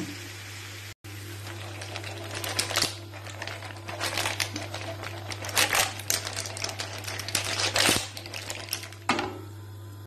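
Mussels, clams and squid frying in butter and olive oil in a pan, crackling and popping irregularly, with louder bursts of spitting every second or two.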